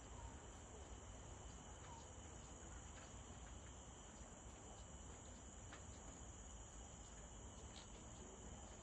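Faint, steady high-pitched drone of forest insects, with a few faint ticks over a low rumble.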